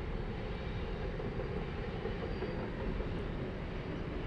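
Freight train of covered hopper cars rolling steadily across a steel trestle bridge: a continuous low rumble of wheels on rail.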